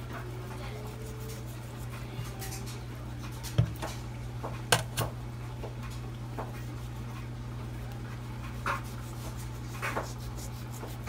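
A dull knife working at raw pig feet, cutting and scraping off excess skin: scattered small knocks and scrapes over a steady low hum.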